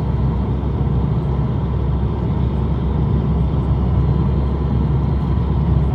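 Steady rumble of road and engine noise from a car in motion, heard from inside the cabin.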